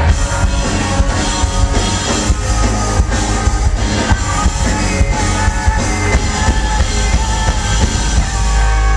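Live rock band playing full out, with drum kit, electric guitars and a singer, heard loud through a small camcorder's microphone in the crowd. About eight seconds in the drums drop out, leaving held, ringing notes.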